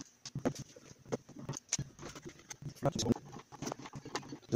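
Screwdriver working the screws out of the plastic case of a Schumacher SJ1329 jump starter: irregular small clicks and knocks of metal on plastic as the case is handled.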